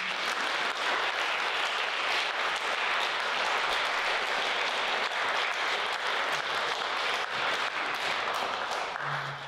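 An audience applauding steadily, thinning out near the end.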